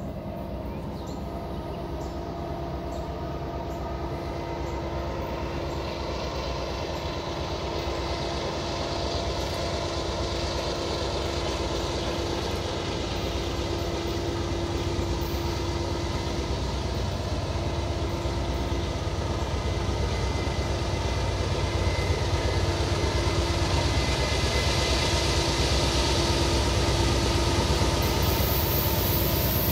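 A CSX mixed freight train's diesel locomotives approaching: a steady low rumble that grows louder throughout.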